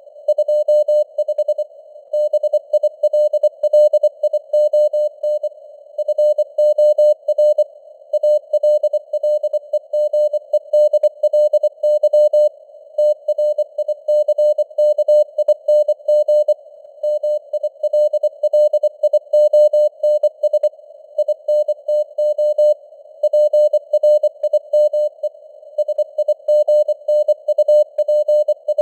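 Morse code (CW) sent at 24 words per minute as a single steady-pitched beeping tone keyed in quick dots and dashes. It sits in a narrow band of simulated receiver hiss with fading signal strength (QSB), as heard from a shortwave radio.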